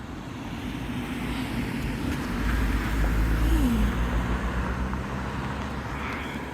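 A car driving past, its engine and tyre rumble swelling to a peak near the middle and easing off, with a drop in pitch as it goes by.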